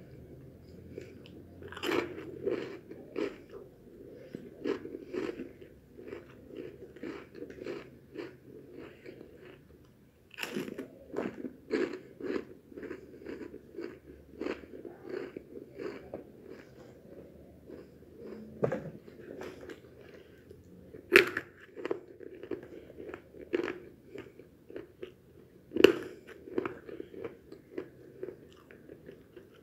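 A person biting and chewing crunchy snacks, corn puffs and Japanese-style coated peanuts: a steady run of crisp crunches, with a few louder bites spread through.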